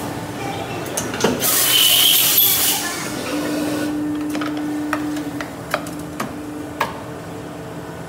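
Rubber compression-molding press opening its mold. A burst of hissing comes about one and a half seconds in, then a steady hum from the press's hydraulics, with a few sharp metallic clicks and knocks from the mold plates.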